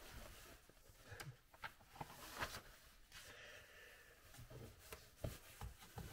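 Near silence in a small room, broken by a few faint scattered clicks and soft knocks, like handling noise.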